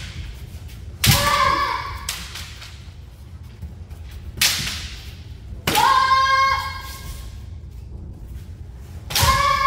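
Kendo fighters' kiai: high women's shouts, each set off by a sharp impact of a shinai strike. About a second in comes a strike with a short shout, a noisier burst follows near the middle, then a strike and a long held shout, and another shout starts near the end.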